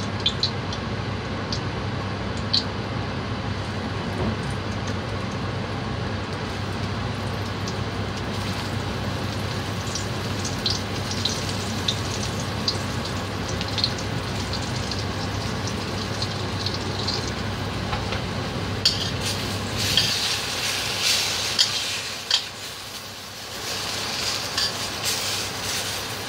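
Hot oil sizzling and crackling in a wok as flour-coated, fish-stuffed eggplant slices are laid in to shallow-fry. The crackle grows busier partway through as more slices go in, dips briefly, then picks up again as a spatula stirs and turns them.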